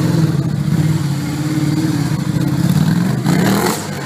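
Motorcycle engine running, its pitch wavering slightly. Near the end there is a brief clatter as the bike goes over.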